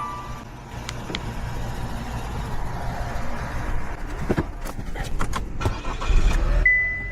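Car running with a steady low rumble, with a handful of sharp clicks and knocks about four to six seconds in.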